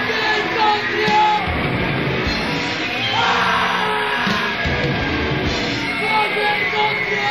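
Loud noise-hardcore recording: distorted guitars, bass and drums with vocals, under a wall of harsh electronic noise with steady and sliding high squealing tones.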